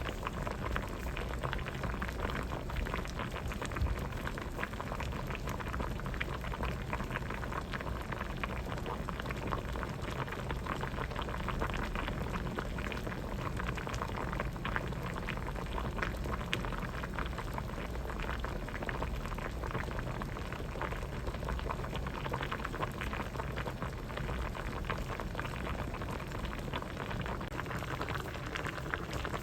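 Pot of vegetable soup boiling steadily: constant dense bubbling and popping.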